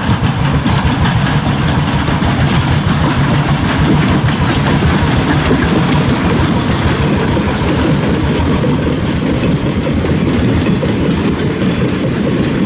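Replica 4-4-0 steam locomotive passing close with its train, wheels clattering over the rail joints in a loud, steady clatter. Over the second half its passenger cars roll past.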